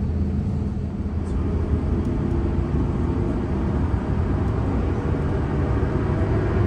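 Steady low rumble inside the cabin of an Airbus A350-900 on the ground, with a rising whine starting near the end as its Rolls-Royce Trent XWB engines spool up for takeoff.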